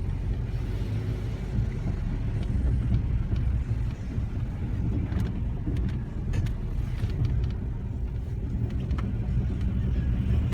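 Nissan car running with a steady low rumble and a few faint clicks: the grinding noise whose cause the owner is asking about.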